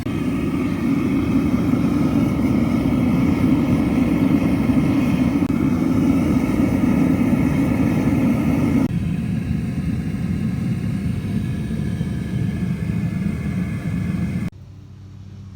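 Melting furnace running with a steady rumble while aluminum lathe shavings melt down. Its level drops abruptly about nine seconds in and again near the end.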